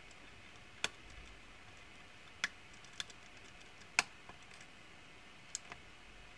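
Lock pick working the pin stack of a Nemef NF2 lock cylinder under tension during single-pin picking: a handful of short, sharp clicks at irregular intervals, the loudest about four seconds in.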